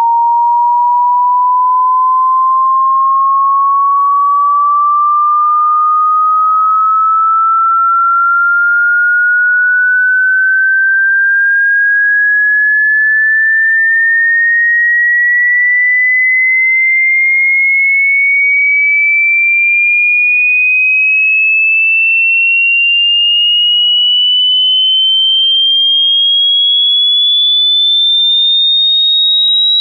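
Hearing-test frequency sweep: a single pure sine tone gliding slowly and evenly upward in pitch, climbing a little over two octaves at a steady loudness.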